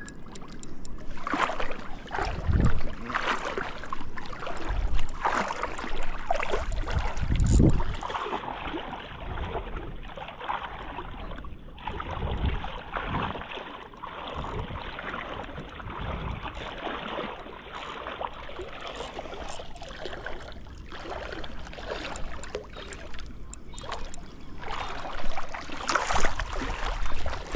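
Water sloshing and splashing in shallows as someone wades through it, in irregular surges with a few low thumps.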